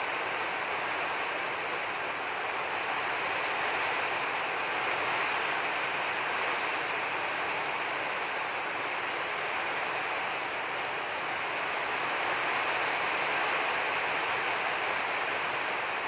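Steady hiss of heavy rain, swelling slightly a couple of times.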